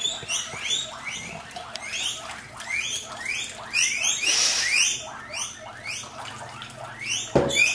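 Whey pouring from a pot through a small plastic strainer into a basin, splashing, while short rising chirps from an animal repeat about twice a second. A single knock near the end.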